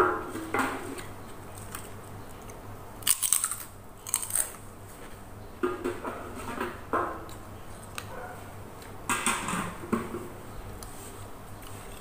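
Close-up eating sounds: chewing and crunching, with spoon and fork clinking in the bowl. A few short crackly bursts come about three, four and nine seconds in.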